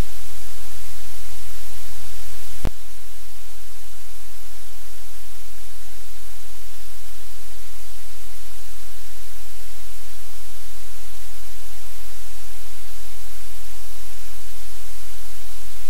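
Loud, steady static hiss over a low hum, with a single sharp click about two and a half seconds in, after which the hum drops slightly.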